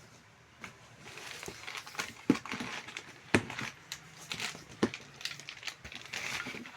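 Packaging rustling and crinkling as accessories are handled and unpacked, with a few sharp clicks or knocks among it.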